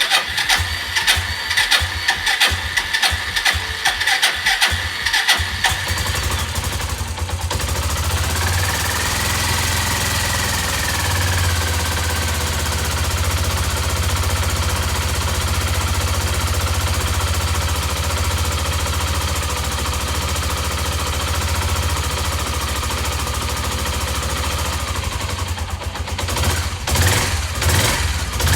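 Suzuki Grasstracker's 250 cc single-cylinder engine starting: about five seconds of ragged, uneven firing as it catches, then a steady idle. A few quick throttle blips near the end.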